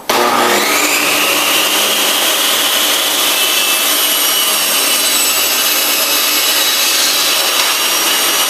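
A table saw switched on: its whine rises over the first second as the blade comes up to speed. It then runs steadily while it makes a test cut through a wood board.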